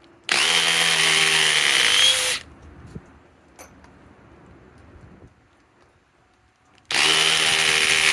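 DeWalt DCF870 hydraulic (oil-pulse) impact driver running in reverse in speed 2, backing out a fastener: two runs of about two seconds each, a steady whine that rises slightly in pitch, the second starting near the end.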